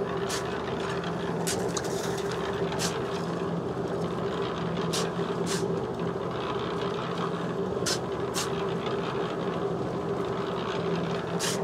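Portable drum concrete mixer running with a steady hum while sand is shoveled into its turning drum. Short scrapes and knocks of the shovels come every second or two, about eight in all.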